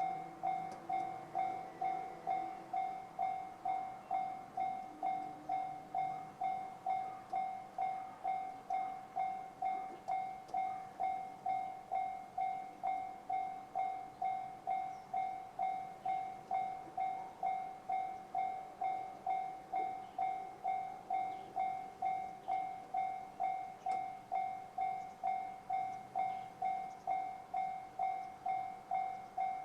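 Japanese railway level-crossing alarm sounding the JR standard electronic tone: a steady, rapidly repeated ding, each strike fading quickly, warning that a train is coming.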